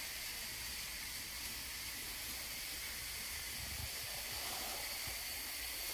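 Steady hiss of background noise with a faint low rumble underneath, and no distinct train sound standing out from it.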